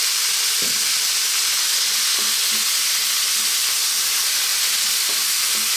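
Vegetables sizzling steadily in hot oil in a frying pan as sweetcorn is stirred in with a wooden spoon, with a couple of light knocks.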